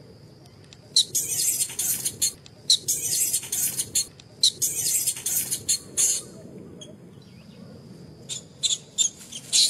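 Baby macaque squealing in shrill, high-pitched bursts, in quick runs of several calls, breaking off for about two seconds before starting again near the end. These are angry protest calls.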